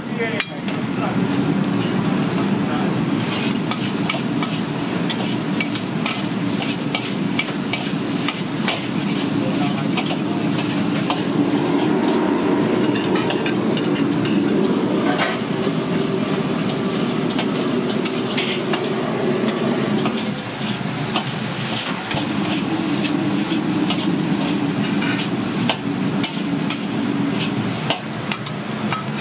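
Stir-frying in a wok, likely the fried rice for the stuffing: a metal ladle scrapes and clanks against the wok over steady sizzling, with frequent sharp knocks throughout.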